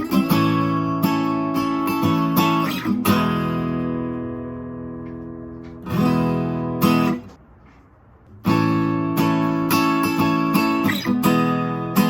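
Acoustic guitar strummed with a pick, playing chords. About three seconds in, one chord is left to ring and fade; there is a brief pause past the middle before the strumming starts again.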